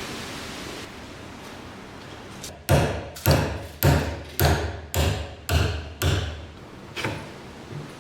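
Hammer blows: seven sharp strikes at about two a second, each with a short ring, then two lighter taps near the end.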